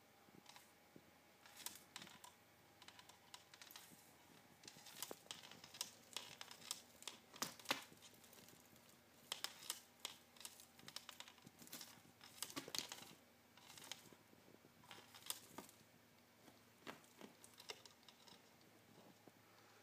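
Quiet, irregular clicks and crinkly rustles in quick clusters as a cat bats and grabs at the wire wand of an electronic cat toy on carpet.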